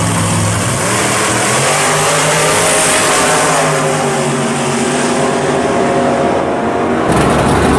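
Two drag-race cars, one a first-generation Chevrolet Camaro, launching off the line and accelerating hard down the strip, their V8 engines rising in pitch and fading as they pull away. Near the end the sound cuts abruptly to a closer engine running.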